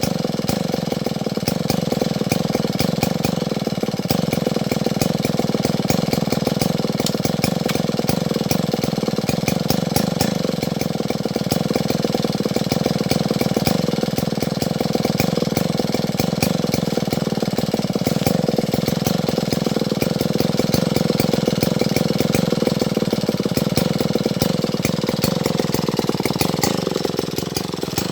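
Stihl MS070 two-stroke chainsaw running steadily at high speed, its pitch dropping a little near the end.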